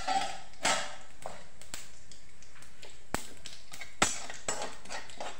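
A slotted steel spoon stirring spices in a little oil in a steel kadhai, scraping the pan, with a few sharp metal clicks against it, the clearest about three and four seconds in.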